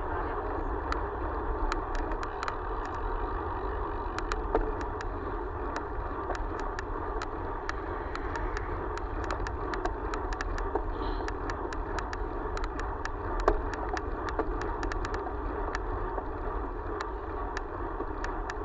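Steady road and wind rush heard through a vehicle-mounted camera while driving along a country road, with frequent small irregular ticks throughout.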